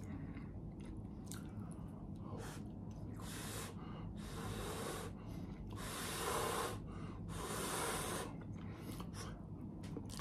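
A person breathing out hard through the mouth, about five strong breaths in a row around the middle, after a few quiet chewing clicks: the breathing of someone with a mouthful of food that is too hot, here hot grits.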